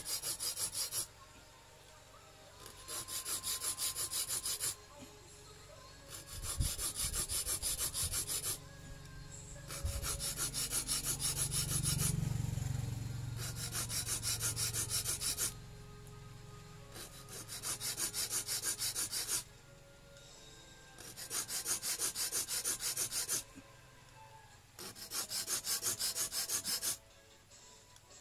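Small hand file rasping on a flattened steel welding-rod lure blank in quick short strokes, cutting notches into its edge. The filing comes in bursts of two to four seconds with short pauses between, about seven times. A low rumble swells and fades around the middle.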